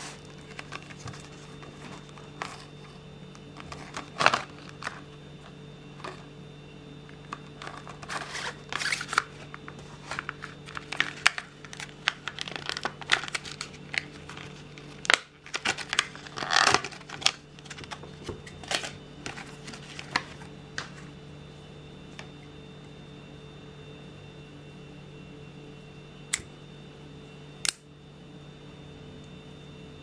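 Clear plastic packaging bag crinkling and rustling in quick irregular crackles as a small folding knife is worked out of it. Two sharp clicks follow near the end.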